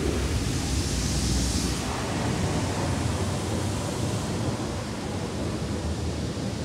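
Belanger Saber touchless car wash spraying water over the car, heard from inside the cabin as a steady rushing spray, with a stronger hiss for a moment about a second in.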